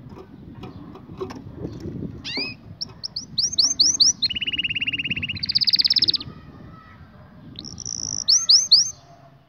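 White domestic canary singing: quick repeated swooping notes, then a fast rolling trill that jumps straight into a higher trill, a short pause, and a last phrase of trilled and swooping notes near the end. A steady low rumble sits underneath.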